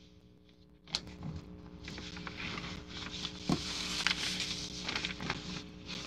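Rustling and crackling with many small clicks, starting about a second in: fabric and paper being handled close to the microphone while cutting quilt pieces.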